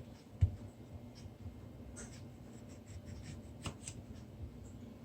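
Knife cutting on a cutting board: irregular light taps and scraping strokes, with one louder knock about half a second in.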